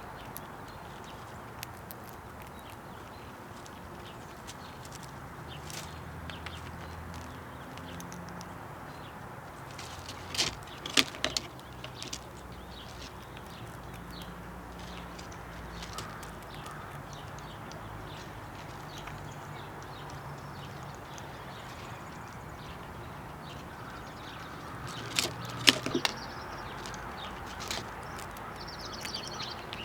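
Squirrel rummaging for peanuts in a wooden bird house feeder: sharp knocks and clicks come in two short clusters, about ten seconds in and again near twenty-five seconds, over a steady low outdoor hum.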